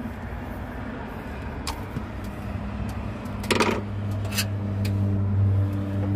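Hand tools clinking against metal as a radiator hose is worked loose: a few sharp clinks, with a quick cluster near the middle. Under them, a steady low engine-like hum comes in about two seconds in and grows louder.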